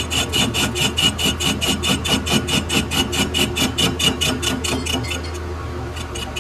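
Workshop metalworking machinery making a rapid, rhythmic rasping, about five strokes a second, over a steady low machine hum. The strokes stop for about a second, roughly five seconds in, then start again.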